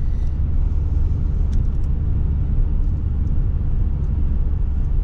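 Steady low rumble of a moving car, engine and road noise.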